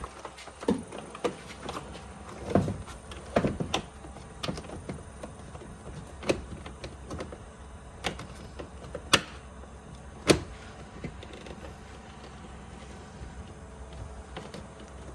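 Irregular clicks and knocks from a truck's door panel parts and wiring being handled and fitted back together. The two sharpest knocks come about nine and ten seconds in, and the last few seconds are quieter.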